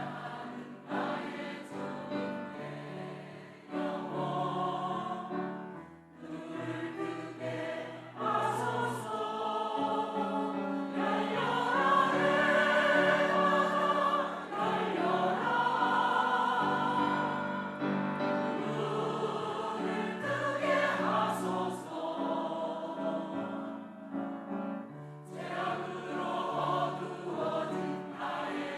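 A church choir singing a sacred anthem in long held chords, swelling to its loudest in the middle and softening near the end.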